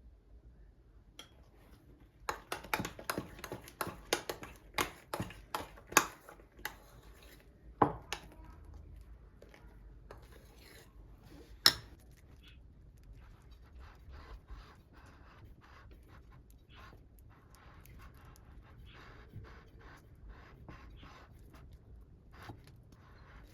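Kitchen handling sounds: a run of sharp clicks and knocks for several seconds, a single sharp click a little before the middle, then soft scraping and tapping.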